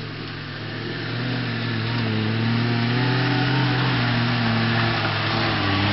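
Engine of a small four-wheel-drive off-roader running at fairly steady revs as it drives over rough ground, its pitch wavering a little. It grows louder over the first couple of seconds as it comes closer.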